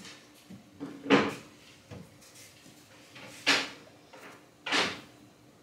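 Three short knocks from a painted cedar strip being pressed and shifted against the van's bare metal floor as it is set into construction adhesive.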